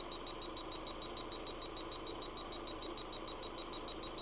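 Electrical tester in injector mode beeping rapidly and evenly, about five or six high pulses a second, in step with a fuel injector switching while the engine idles.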